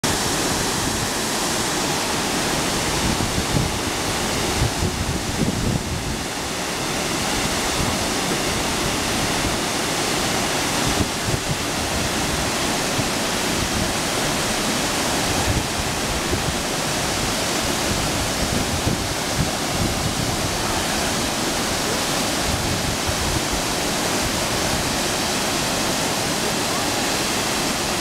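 Wide waterfall pouring over a rock ledge into a plunge pool: a steady, even noise of falling water.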